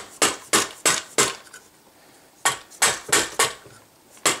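Rubber mallet striking a Saiga rifle's receiver to knock the factory buttstock loose, sharp blows about three a second in two runs with a pause of about a second between them and one more blow near the end. The stock is starting to come out of the receiver.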